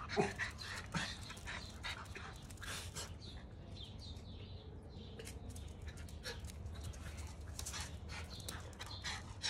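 Miniature Schnauzers panting and whimpering, with short scuffs and clicks clustered in the first few seconds and again near the end.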